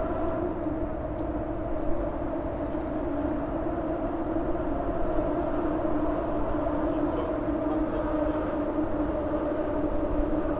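Steady droning hum of traffic crossing the 25th of April suspension bridge overhead, its tyres singing on the steel grid deck: a constant low-pitched tone with overtones over a rumble.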